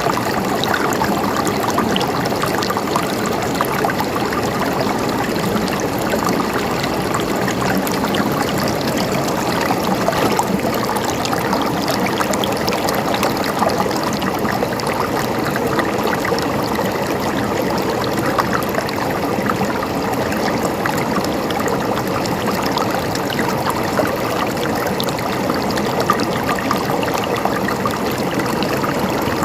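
River water flowing over stones: a steady rushing and babbling, with many small splashes.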